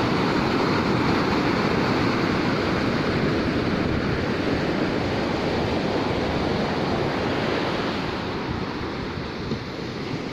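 Ocean surf breaking and washing up a sandy beach in a steady rush, easing a little near the end.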